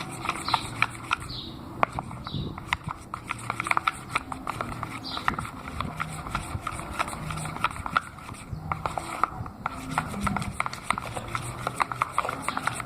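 Thickening glue slime being stirred hard in a bowl: quick, irregular sticky clicks and squelches, with a few short high squeaks.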